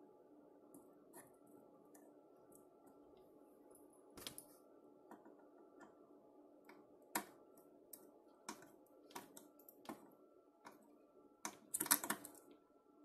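Scattered faint clicks and light rattles of hookup wires being handled and pushed into the terminals of a circuit board, over a faint steady hum; a louder cluster of clicks comes near the end.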